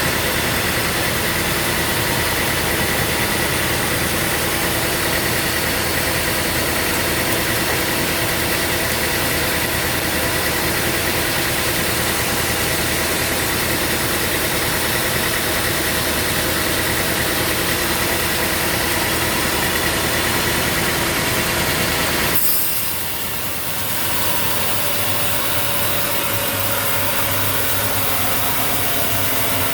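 Sawmill machinery running steadily with a constant mechanical hum and whine. About 22 seconds in, it drops off abruptly for a moment, then carries on with a slightly changed pitch.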